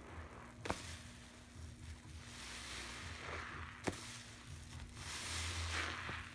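Soapy sponges squeezed and wrung by hand in a tub of foamy water: wet squelching and crackling lather that swells a couple of times, with two sharp clicks, about a second in and again about four seconds in.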